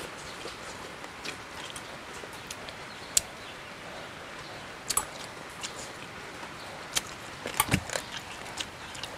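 Close-up eating sounds: a man chewing frog meat pulled off the bone, with scattered wet mouth clicks and smacks over a steady background hiss. A cluster of louder clicks and a soft thump come near the end.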